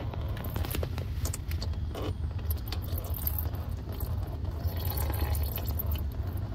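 Old motor oil dripping from a loosened spin-on oil filter and the open drain-plug hole into a drain pan, as scattered small drip ticks over a steady low rumble.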